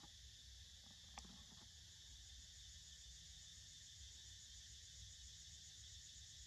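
Faint, steady chirring of insects, with one small click about a second in.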